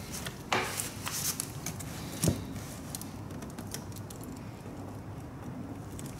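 Screwdriver working at a tight Phillips screw on a fuel petcock, with small clicks and handling noises, a scrape about half a second in and a sharp knock a little after two seconds.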